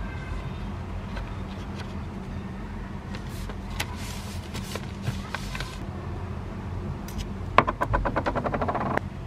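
Paper and a sticker sheet rustling and sliding under hands on a desk. Near the end, a strip of 3M masking tape is pulled off its roll with a fast crackling rattle, about ten clicks a second, over a steady low hum.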